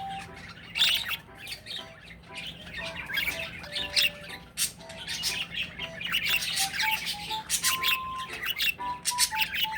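Pet bird giving many short, rapid calls, over background music that plays a simple melody of single notes.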